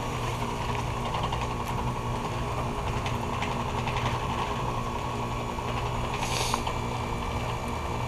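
A 2021 Carrier heat pump's outdoor unit humming steadily while it runs a defrost cycle, melting the ice off its coil. A short hiss comes about six seconds in.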